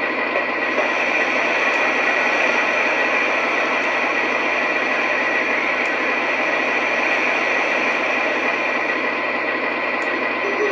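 Steady hissing rush from a model locomotive's onboard sound system, even throughout with no clear beat, thin and without any low rumble as from a small speaker.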